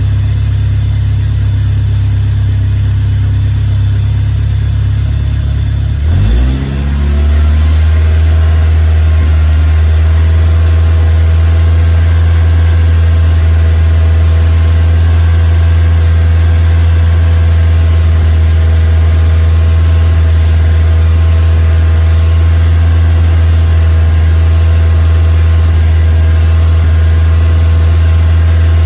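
Westfield's Ford Zetec four-cylinder engine running at fast idle with a misfire. About six seconds in, the engine note dips briefly and then settles at a slightly lower steady speed.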